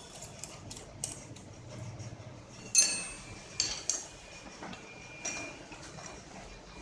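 Scattered metallic clicks and clinks as a small end mill cutter is fitted and tightened into a milling machine collet, the loudest clink about three seconds in.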